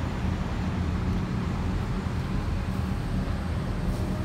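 Diesel freight locomotives approaching, a steady low engine rumble.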